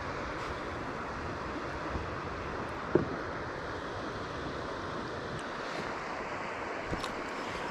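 Steady rush of shallow river water flowing over rocks, with a single sharp knock about three seconds in.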